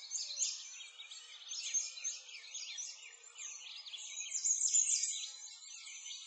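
A dense chorus of small birds chirping, many quick high-pitched chirps overlapping without a break.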